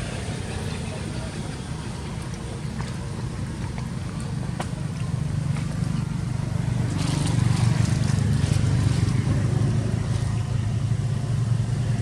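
A steady low engine hum that grows louder about seven seconds in.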